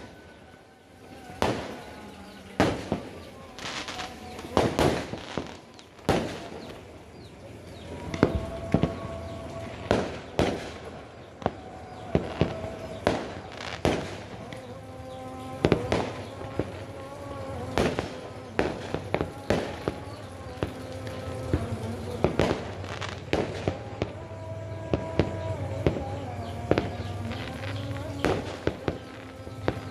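Fireworks and firecrackers going off in the sky: a run of irregular sharp bangs and crackles throughout, some much louder than others.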